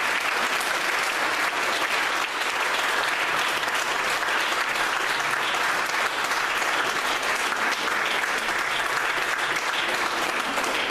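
Congregation applauding, a steady unbroken clapping.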